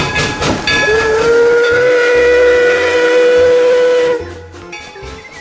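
Steam locomotive whistle sound effect: a steady whistle held for about three seconds over a steam hiss, starting about a second in after a short burst of hissing.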